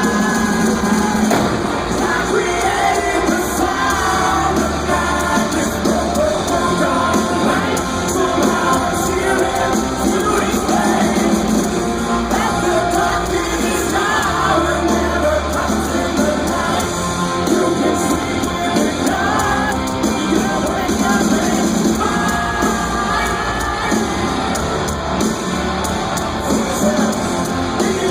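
Hard rock band playing live and loud in an arena hall, with voices singing and yelling over the music.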